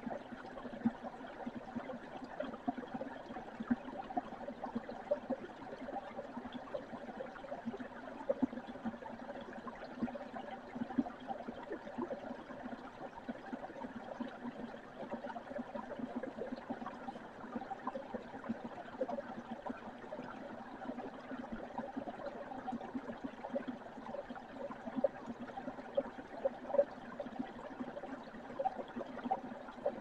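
A small, shallow stream running over rocks: a steady flow of water with many quick little splashes.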